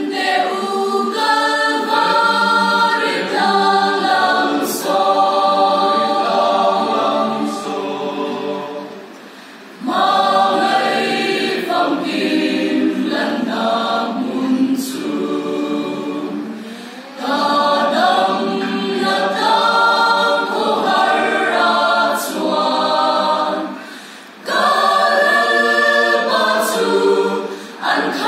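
A mixed church choir of men and women singing a hymn in several parts, in long phrases with short breaks for breath about every seven seconds.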